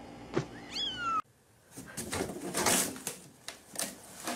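A kitten gives one short meow that falls in pitch, just after a single click, about a second in. Then a run of irregular clattering and rustling knocks follows.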